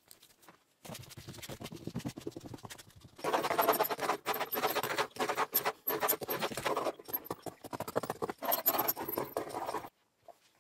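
Carbon fibre cloth being smoothed with gloved hands and worked with a small roller over a resin-coated wing core, making a dense scratching rustle. It is fainter for the first couple of seconds and louder from about three seconds in, then stops just before the end.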